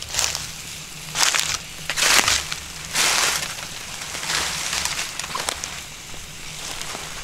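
Dry crunching and rustling in several short bursts about a second apart, then weaker ones: something dry being crushed or worked in the hands.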